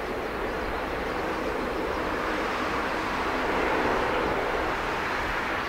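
Bombardier DHC-8-Q400 taxiing on its two Pratt & Whitney PW150A turboprops: a steady propeller-and-engine drone that grows a little louder about four seconds in.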